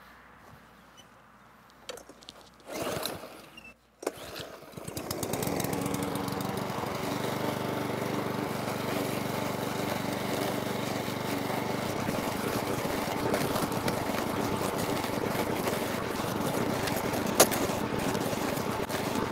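Parkside PBM 132 B1 petrol lawn mower's 132 cc four-stroke engine running steadily while cutting grass, coming in about four seconds in after a short quiet stretch. One sharp knock sounds near the end.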